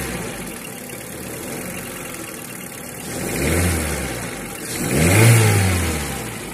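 Honda L13 inline-four engine idling and revved twice, the pitch rising and falling each time, the second rev louder and higher. The engine runs rough with a misfire.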